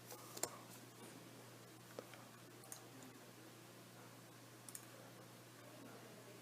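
Near silence: faint hiss and a low steady hum, with a few scattered faint clicks.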